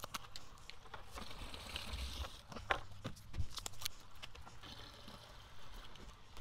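Faint trickle of liquid, swelling twice, with a few light clicks and knocks from handling.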